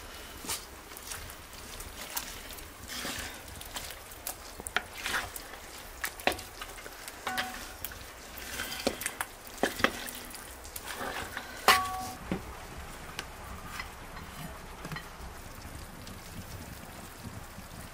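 Lamb and tomato paste sizzling in a cast-iron pot while a spatula scrapes and knocks against the pot as the meat is stirred. The loudest knock, about two-thirds of the way in, rings briefly.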